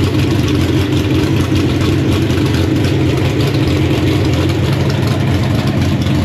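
Drag racing engine running loud and steady at idle during a pit warm-up, with no revs.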